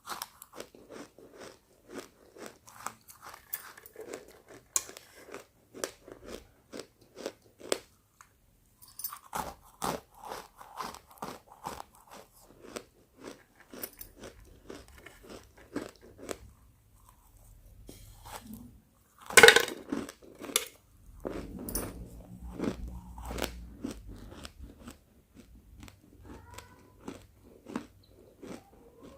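Roasted pink chalk being bitten and chewed close to the microphone: a quick run of sharp, dry crunches with a short pause about a third of the way in, and one loud snapping bite about two-thirds of the way in.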